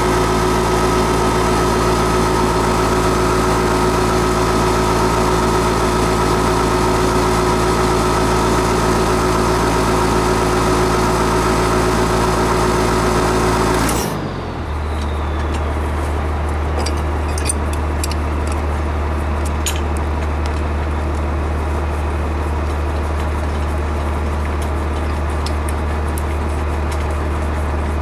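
Steady motor hum with several held tones. About halfway through it changes abruptly to a lower, deeper hum with a few faint clicks.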